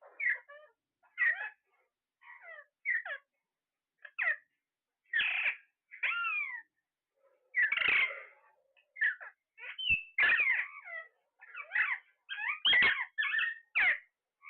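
Pet parrots calling: a run of short squawks and chirps, many sliding down in pitch, with brief gaps between them that close up near the end.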